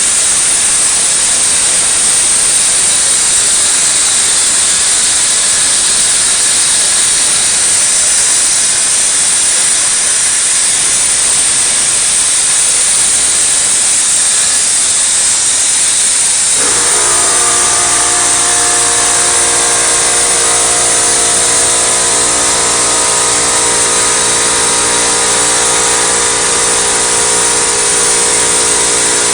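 CNC plasma cutter's torch cutting 3/8-inch steel plate: a loud, steady hiss. About two-thirds of the way through, a steady machine whine of several tones joins in over it.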